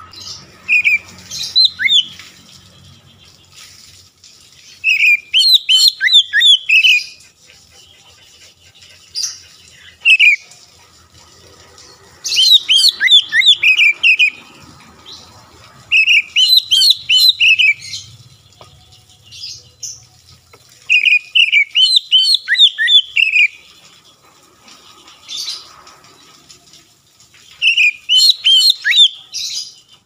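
Oriental magpie-robin singing in loud bursts of quick whistled notes that rise and fall, about eight phrases of one to two seconds each with short pauses between.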